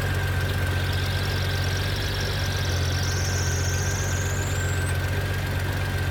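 Honda GL1500 Gold Wing's flat-six engine idling steadily with the clutch lever slightly pulled. A faint high whine from the clutch climbs in pitch through the middle and then fades out. The uploader traced this clutch noise to a clutch slave cylinder full of debris.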